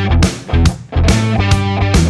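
Background rock music with guitar over a steady beat, dipping briefly about half a second in.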